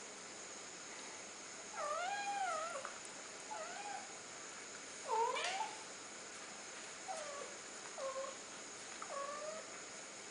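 Scottish Fold kittens meowing: about six short, high, wavering meows, the loudest one about five seconds in.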